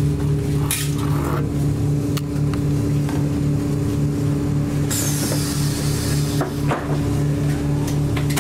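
Scania L94UB city bus running, heard from inside the cabin: a steady engine drone with a pulsing low hum and scattered rattles. About five seconds in, a hiss starts and lasts about a second and a half.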